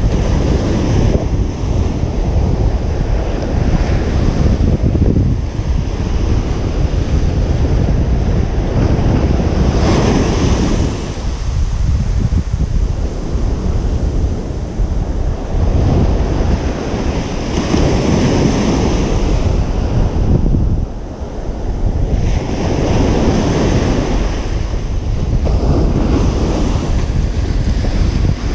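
Ocean surf breaking on a beach, the waves swelling and washing in every few seconds, with a steady low rumble of wind on the microphone.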